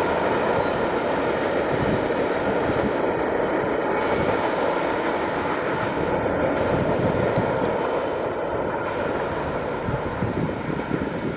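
Freight train cars rolling on the rails: a steady rumble of steel wheels on track that slowly fades as the rear of the train, an autorack car, draws away.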